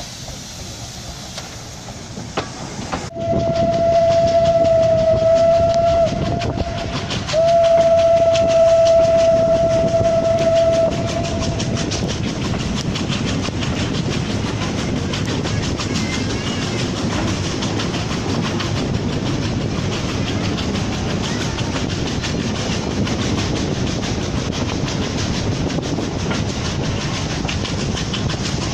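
A steam locomotive's whistle gives two long, steady blasts on one pitch, heard from a carriage of the train it is hauling. After that comes the running train's rumble, with the rhythmic clickety-clack of the coach wheels over the rail joints.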